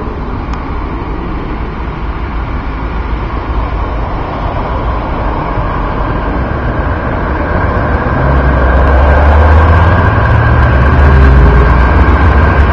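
Berlin tram pulling away from a stop and running off along the track, a steady rolling noise. About two-thirds of the way in, a louder low rumble takes over.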